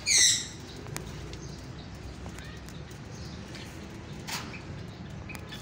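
Aviary birds: one loud, short, high chirp that falls in pitch right at the start, then faint low cooing from the doves with a few small clicks and a brief rustle about four seconds in.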